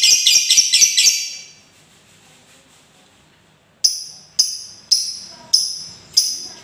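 Lovebird chattering: a rapid run of shrill notes, about five a second, that stops about a second and a half in, then after a pause a string of sharp shrill calls about every half second.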